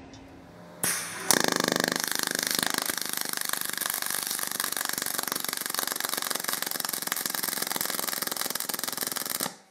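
Pulsed MIG arc of an HTP ProPulse 200 brazing with silicone bronze wire and straight argon, laying a tack between a stainless steel elbow and a titanium exhaust pipe. It is a fast, steady, crackling buzz that strikes about a second in and cuts off sharply near the end.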